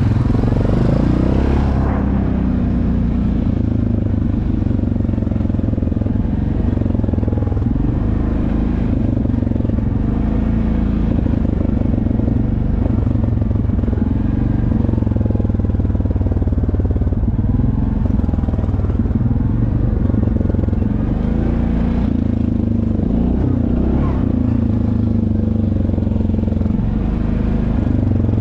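ATV engine running steadily while riding a dirt trail, its speed rising and falling slightly.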